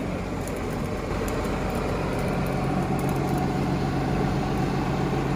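A fishing boat's engine running steadily: an even, low drone.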